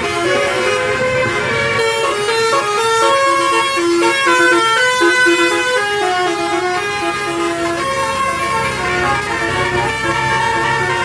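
Indonesian 'telolet' musical bus horn playing a long, fast, stepped tune of several horn notes at once, with a low rumble underneath.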